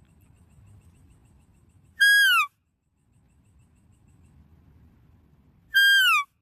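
An animal calls twice, about four seconds apart. Each call is a short, loud whistled note that holds and then falls, and both sound alike. A faint low rumble runs between the calls.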